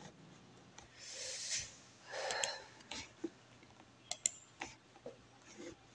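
Faint breathing close to the microphone, with several short, sharp clicks from a computer mouse between about two and four and a half seconds in.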